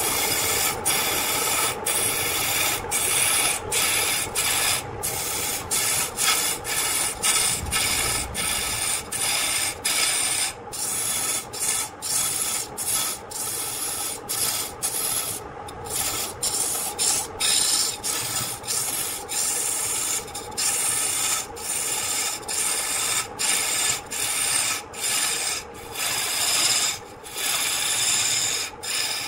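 Turning tool cutting into a large block of wood spinning on a lathe: a continuous rasping scrape of shavings peeling off, broken by short gaps about once or twice a second as the tool is eased off and set back in. The lathe's steady running hum sits under it.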